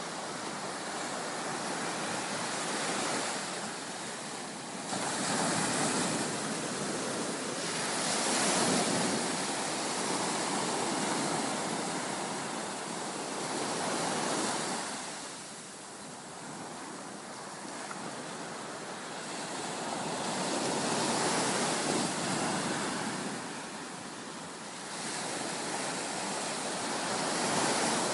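Surf breaking on a beach: a wide rush of water noise that swells and falls away every few seconds as waves come in and wash back.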